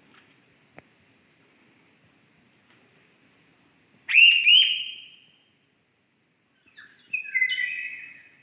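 Bird-like whistled calls: two sharp, quick sweeping chirps about four seconds in, then a run of calls near the end, over a steady high-pitched insect drone.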